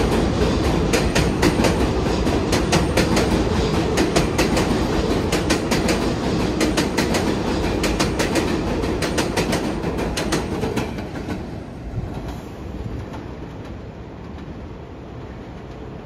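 R188 subway train on the elevated 7 line running by, its wheels clattering rapidly over the rail joints, then fading away about eleven seconds in.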